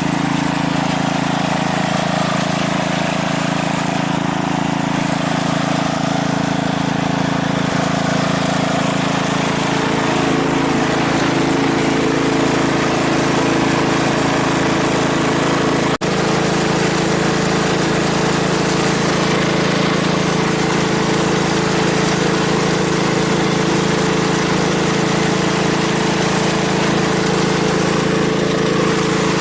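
An engine running steadily at an even speed, without revving, throughout.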